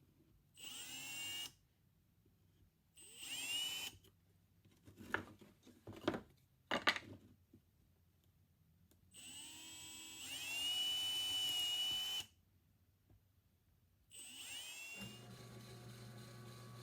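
Electric drill boring holes through birch plywood in four short runs, each starting with a rising whine as the motor spins up; a few knocks come between the runs.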